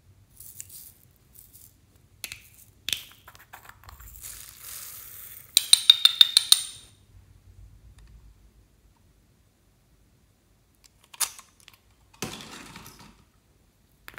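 Small hollow plastic toys handled over a tray of bead-covered slime: scattered clicks and a rustling hiss, then a loud burst of rapid rattling about halfway through, like beads shaken inside plastic, and a softer rustle near the end.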